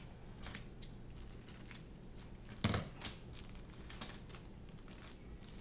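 Plastic packaging bags rustling and crinkling as they are opened and handled, with scattered small clicks and one louder thump about two and a half seconds in.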